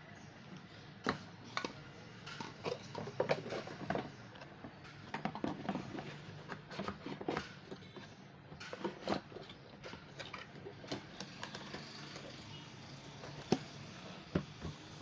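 Irregular clicks, taps and rustles of an order being packed by hand, with a few sharper knocks, the loudest near the end.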